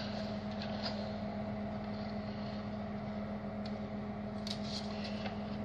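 Steady electrical or mechanical hum of the room, holding a constant low tone, with a few faint taps about a second in and again near four and five seconds in.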